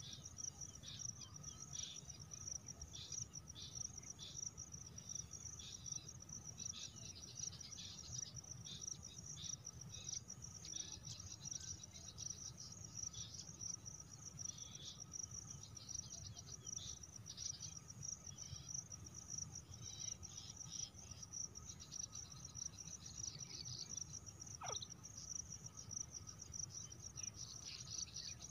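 Faint steady chorus of crickets, a high shrill trill, with short high chirps scattered through it and one quick falling whistle near the end.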